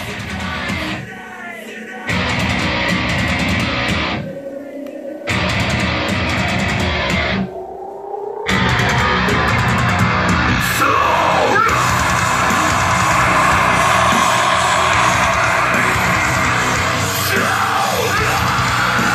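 Rock music with guitar and vocals playing loudly through home-theatre speakers. It breaks off briefly three times in the first eight seconds, then plays steadily.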